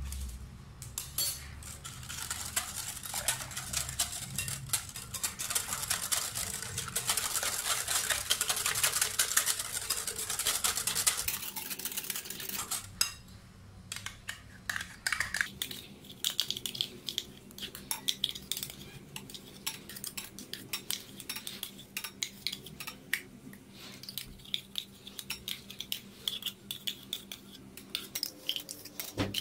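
Wire whisk beating a thin cake batter in a glass bowl, its metal wires clinking rapidly against the glass. The whisking is fast and steady for about twelve seconds, stops briefly, then goes on in lighter, more scattered strokes.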